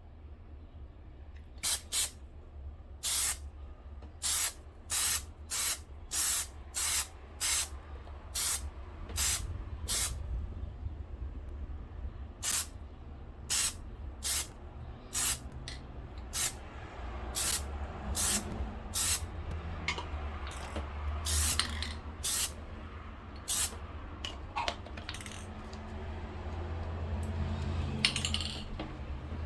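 Aerosol can of Plasti Dip metalizer spraying in many short bursts, roughly one every half-second to second, with a brief pause partway through.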